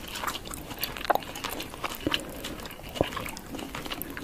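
Close-miked eating sounds: a person chewing chicken with lettuce, with scattered wet mouth clicks and light crunches.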